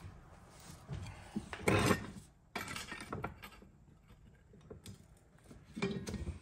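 Thin sheet metal being handled and worked by hand: a few separate light metallic clinks, rattles and scrapes, the loudest about two seconds in.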